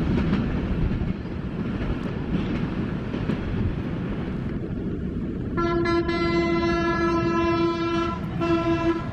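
Broad-gauge passenger train running past with a steady rumble, its ALCO WDM-2 diesel locomotive's horn sounding one long blast about five and a half seconds in and then a short second blast near the end.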